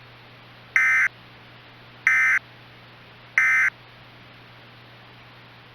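Emergency Alert System (SAME) end-of-message data bursts: three short, buzzy digital chirps about 1.3 seconds apart, signalling the end of a weather radio alert. A steady low hum and faint hiss lie underneath.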